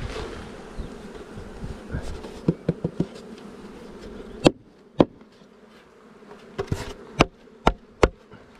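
Honeybees buzzing steadily around an open hive, with sharp knocks as a polystyrene nuc feeder is tapped to shake the remaining bees into the hive. There are a few light knocks, two loud ones about halfway through, and four more near the end.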